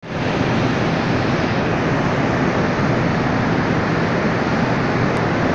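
Steady loud industrial noise of a steel plant's converter shop as molten iron pours from a crane-held ladle into a steelmaking converter, an even rushing din without rhythm or pitch.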